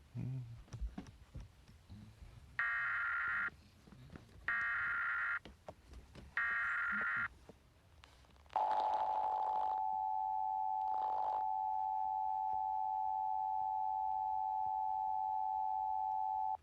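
Emergency Alert System signal: three short, shrill, buzzy data bursts of the coded header, about a second each and a second apart, then the steady two-tone attention signal (853 and 960 Hz) for about eight seconds, cutting off sharply. It announces a Child Abduction Emergency (Amber Alert).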